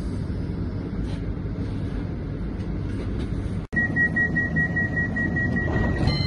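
Steady low hum of a CAF Urbos 100 tram standing at a stop. After a sudden cut, the tram's door warning beeps rapidly at one high pitch for about two seconds, and music comes in at the very end.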